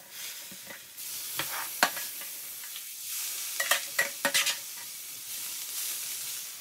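Roasted onions, peppers and tomatoes sizzling with a steady hiss on a hot cast iron sizzler plate, while a metal spoon scrapes and clinks against a stainless steel roasting tray, once about two seconds in and several times near four seconds.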